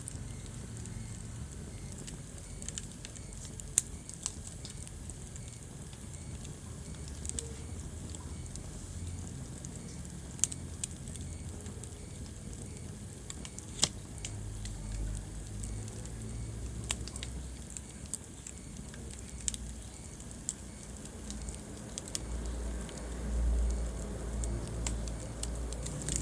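Wood fire burning in a fireplace: scattered sharp crackles and pops over a low steady rumble. The loudest pops come about four seconds in and near the middle, and the rumble swells toward the end.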